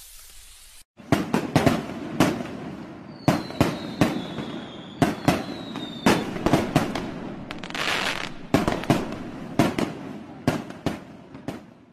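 Fireworks going off: a rapid, irregular string of sharp bangs over crackling, with a long whistle falling slightly in pitch from about three to six seconds in.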